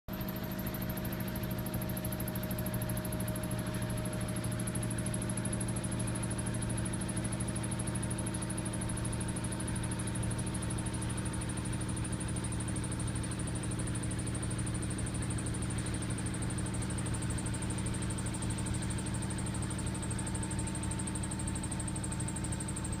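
National-brand washing machine running its spin cycle with a steady, heavy mechanical hum and a high whine that slowly drops in pitch. This is the abnormal, severe spin-cycle noise of a faulty machine.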